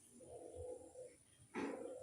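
Burung puter (collared dove) cooing as a lure call: a held coo, then a louder, harsher note about one and a half seconds in.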